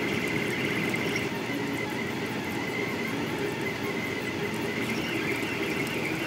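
Stepper motors of a Delta Rostock 3D printer driving a high-speed print: a busy, fluttering buzz of quick back-and-forth moves, with a thin high whine that comes and goes.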